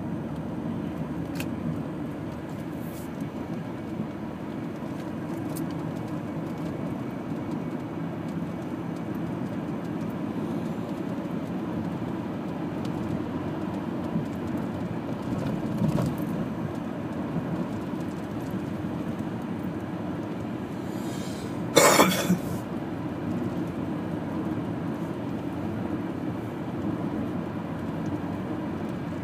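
Steady low road and engine rumble heard from inside a moving car's cabin. About three-quarters of the way through, a short loud noise lasting about half a second stands out above it.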